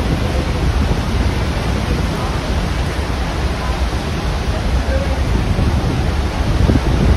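Horseshoe Falls at Niagara roaring at close range: a steady, loud rush of falling water and churning river with a deep rumble underneath.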